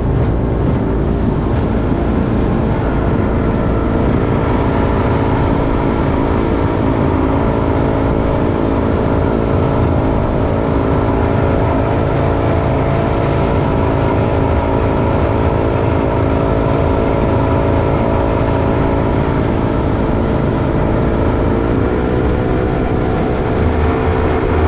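Motorboat engine running steadily under way, with a slight rise in pitch near the end.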